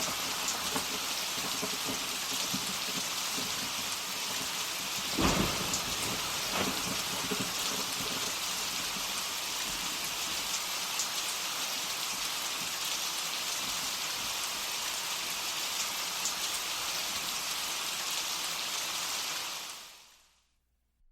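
Steady heavy rain with a thunderclap about five seconds in and a weaker rumble a second or so later; the rain fades out near the end.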